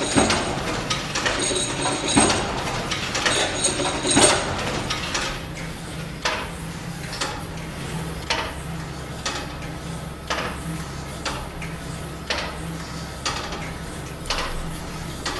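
Corpus Clock striking three: three ringing mechanical strikes about two seconds apart, then its grasshopper escapement clicking about once a second.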